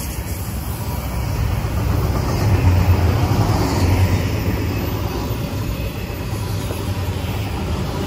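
Freight train's autorack cars rolling past at close range: a steady deep rumble of steel wheels on the rails, swelling slightly a few seconds in.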